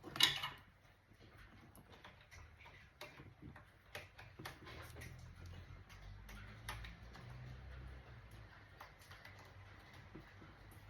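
Scattered light clicks and ticks of small hard parts being handled, with one louder knock right at the start and a faint low hum in the middle.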